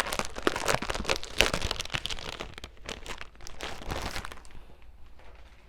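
Crinkling and rustling of scrapbook paper and its packaging being handled: dense for about four and a half seconds, then dying down.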